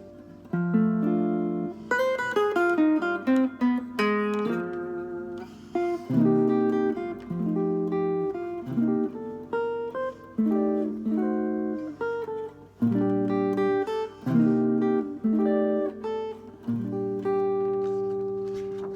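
Solo acoustic guitar playing a song, with plucked chords and single notes that ring out one after another.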